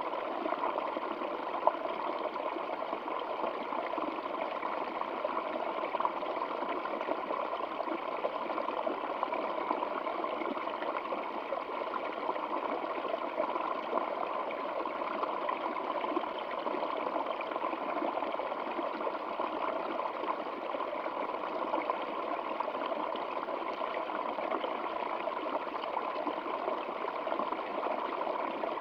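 Water flowing in a stream, a steady, unbroken rush without pauses, heavier in the middle range than in the deep or the very high.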